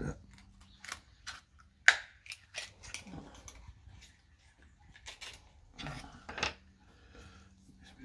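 Oyster knife prying at a raw oyster's shell held in a cloth: scattered clicks and scrapes of the steel blade on shell, the loudest a sharp crack about two seconds in.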